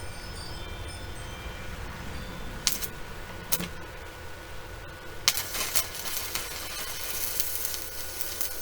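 Inverter arc welder on 120 volts at 93 amps striking an arc on quarter-inch steel: a few sharp cracks as the arc catches and breaks, then a steady crackle from about five seconds in once the arc holds.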